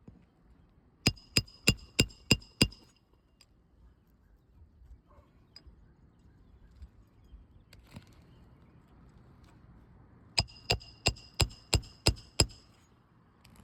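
Roofing hammer striking a roof snake to drive nails back up under asphalt 3-tab shingles. Two quick runs of blows, about three a second, each with a metallic ring: six about a second in and seven more near the end.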